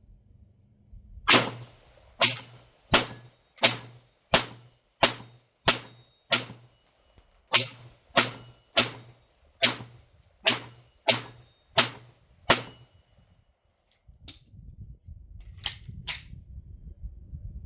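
A Taurus TX22 .22 LR semi-automatic pistol firing about sixteen shots in steady succession, roughly one every 0.7 seconds, then stopping. A low rumble and a couple of faint clicks follow near the end.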